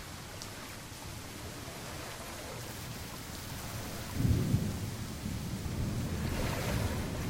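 Steady rain with a low rumble of thunder that starts suddenly about four seconds in and rolls on to the end.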